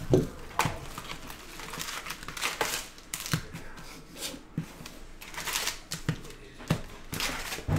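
A cardboard trading-card hobby box being opened and its foil card packs handled: papery rustling and crinkling, with a few light knocks against the table.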